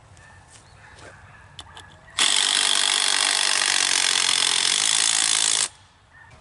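Power drill driving a 6-inch construction screw through a wooden fence post, running steadily for about three and a half seconds, starting and stopping abruptly, with a few faint knocks of handling before it.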